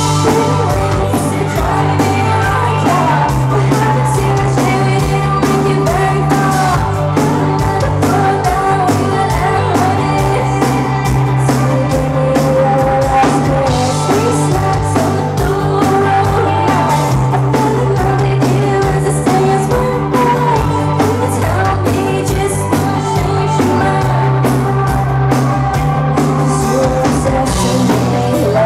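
Rock band playing live, heard from within the crowd: drums, stepping bass and guitars with a female lead vocal, the song starting abruptly at full volume.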